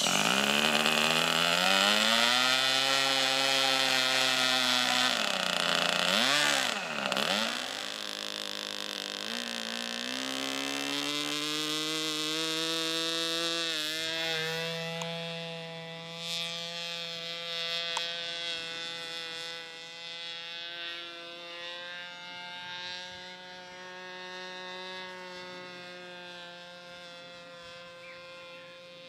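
SC 25 two-stroke glow engine of a model airplane running at high revs, very loud close up, its pitch dipping and coming back up around six to seven seconds in. From about fourteen seconds it holds a steady tone and slowly fades as the plane flies away.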